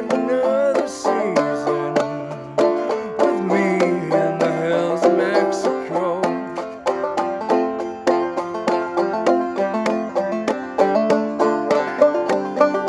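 Five-string banjo played clawhammer style in G modal tuning with the fifth string dropped to F: a steady rhythm of plucked notes and brushed strums. A voice sings along over roughly the first half.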